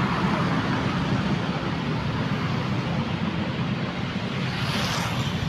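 Steady road-traffic noise from cars and motorcycles moving along a busy city street, a hiss that swells briefly near the end.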